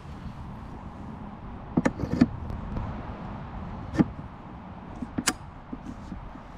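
A few sharp clicks and knocks as a machined metal tube sleeve is handled and slid onto the mast of a Starlink antenna. There is a short cluster about two seconds in and single knocks near four and five seconds, over a steady low background.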